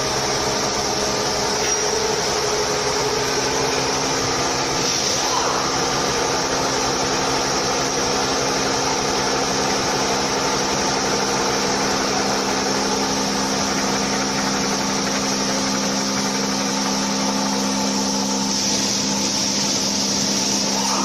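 CORMAK UWF 110 SERVO universal milling machine running steadily: an even low hum with a hiss over it.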